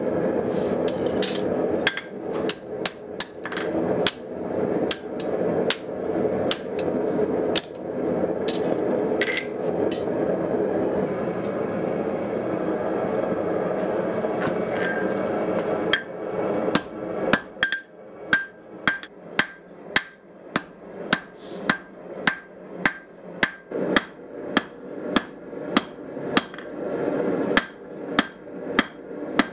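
Hand hammer striking hot spring steel on an anvil, each blow ringing off the anvil, over the steady roar of a propane forge. The strikes are irregular at first and stop for several seconds around the middle. From about halfway they return as a steady run of about two blows a second.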